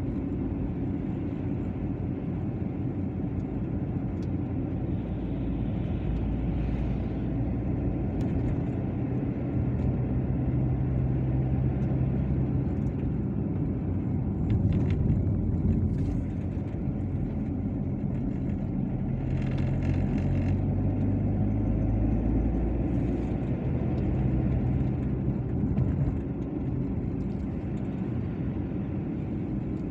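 A car driving along a road, heard from inside the cabin: a steady engine hum under a continuous rumble of tyres on the asphalt.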